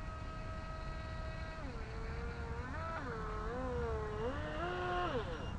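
Feilun FT007 RC boat's electric motor whining at a steady pitch, then from about a second and a half in the pitch drops and rises several times as the throttle is eased and opened, stopping just before the end, over a low rumble.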